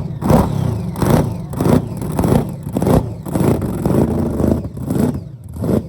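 Burnout car's engine revved hard in repeated throttle blips, about one and a half a second, over a steady low engine rumble.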